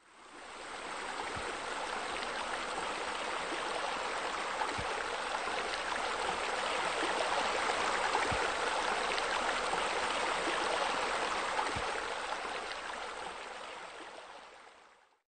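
Steady rush of falling water splashing into a pool, fading in at the start and out near the end.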